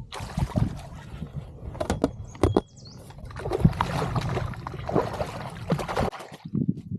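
Water splashing and knocks against a kayak's hull as a hooked bass is brought alongside and landed, with a run of sharp knocks about two seconds in and the busiest splashing from about three and a half to six seconds in.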